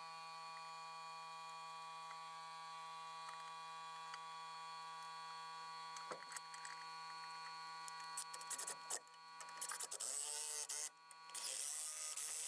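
Steady electrical hum. About eight seconds in, short, repeated bursts of a small electric motor buzzing start, each about a second long.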